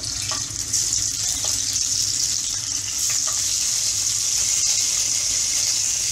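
Stuffed capsicums (bell peppers) going into hot oil in a kadhai and sizzling, a steady hiss that grows stronger about a second in. A few light knocks come as the peppers are set down in the pan.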